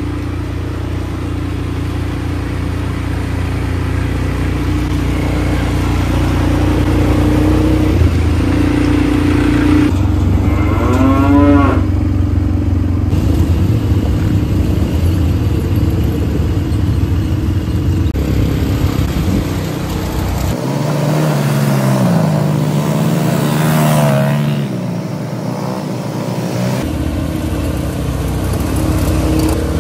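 ATV (quad bike) engines running as the quads are ridden, with the engine pitch rising and falling at times as they rev.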